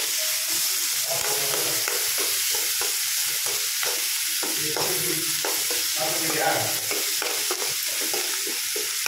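Chopped shallots sizzling steadily in hot oil in a metal kadai, while a steel spoon stirs them, scraping and clicking irregularly against the pan. The onions are being sautéed until soft.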